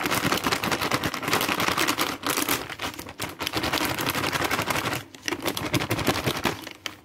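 Plastic flour packet crinkling and crackling as it is handled and tipped to pour out maida, a dense run of rapid crackles with a short pause about five seconds in.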